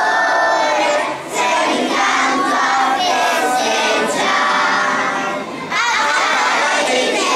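A large group of children singing together in unison, with two short breaks between phrases, about a second in and a little past the middle.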